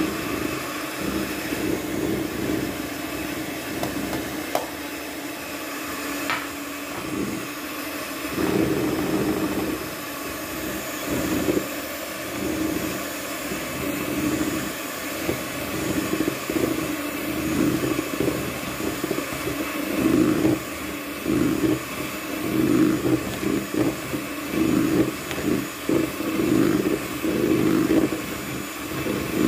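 Electric hand mixer (Miyako) running, its beaters whirring through thick cake batter as flour is mixed into whipped eggs and sugar. The motor sound surges unevenly as the beaters move through the batter.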